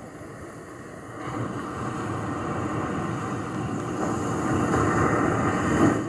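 Small waves washing onto a beach: a steady rush that swells from about a second in and peaks as a wave breaks on the shore near the end.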